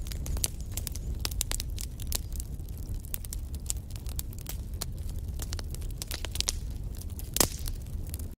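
Wood fire in a fireplace crackling and popping over a low, steady rumble of flames, with one louder pop near the end.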